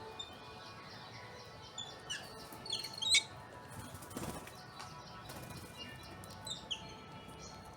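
Birds chirping: scattered short chirps and quick falling whistles from several small birds, bunched together around the middle. A brief whoosh comes about four seconds in, over a steady faint background hiss.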